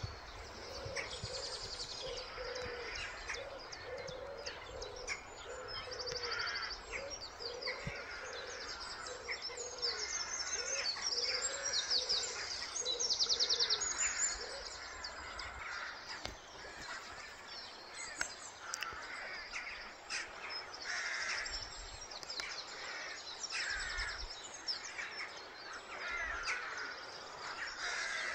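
Dawn birdsong from several birds, with many high trills and chirps, and a lower call repeated about twice a second through the first half. An even background hiss runs underneath.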